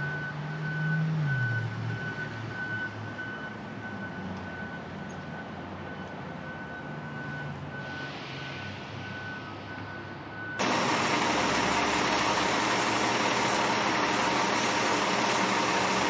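A vehicle engine runs with a steady high-pitched beeping. About ten seconds in, a loud, steady rush of spraying water from a hose starts abruptly as concrete tools are washed off.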